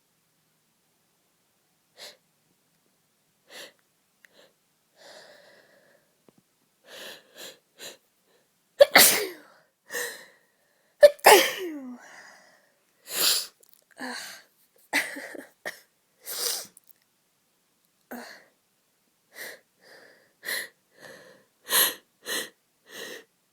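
A woman with a heavy cold sneezing again and again. Short, faint gasping breaths build up first, then the loudest sneezes come about nine and eleven seconds in, followed by a run of further sneezes and catching breaths.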